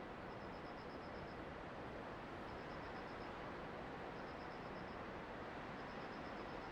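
Steady rushing noise with a high insect chirping over it in short pulsed trills, each about a second long and repeating every second and a half or so.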